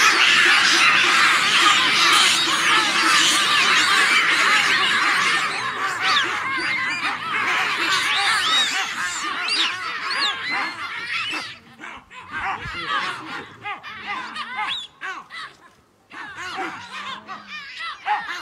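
A troop of baboons screaming and barking, a dense chorus of overlapping high calls that thins out after about six seconds and turns into scattered calls with gaps near the end.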